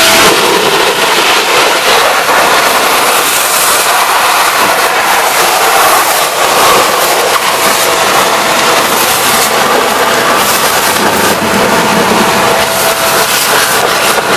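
Vacuum cleaner running loudly with a steady whine, with irregular clattering as stones are sucked up.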